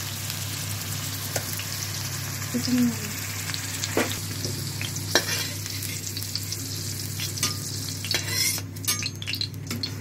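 Raw papaya slices sizzling in hot oil in a wok, with a few sharp metal clinks and scrapes of a spoon against the wok as the pieces are lifted out of the oil.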